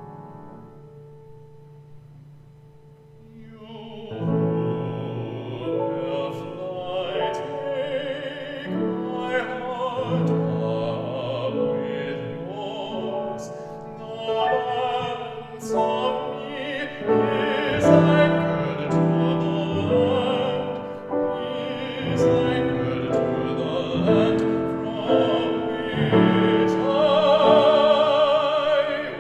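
Baritone voice singing a classical art song with vibrato over piano accompaniment. The voice comes in about four seconds in, after a soft piano passage.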